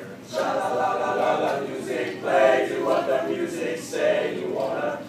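A choir singing a cappella: several voices together in phrases of a song.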